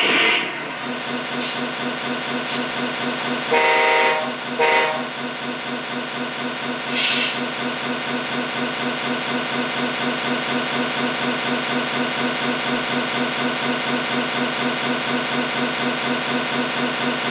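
Scania truck's diesel engine idling with a steady pulsing beat, broken by two short horn toots about three and a half and four and a half seconds in, and a brief hiss about seven seconds in.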